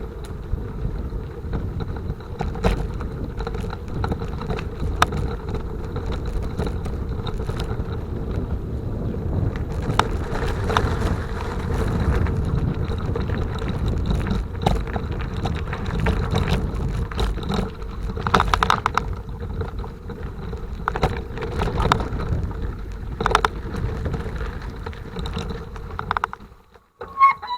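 Rumbling wind noise on the microphone of a bicycle-mounted or handheld camera while riding, with scattered knocks and rattles from the bike over the road surface. The noise cuts off suddenly near the end, followed by a couple of clicks.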